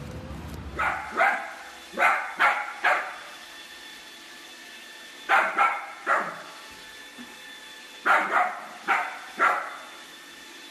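Small black dachshund barking: short, sharp barks in bursts of two to four, about a dozen in all.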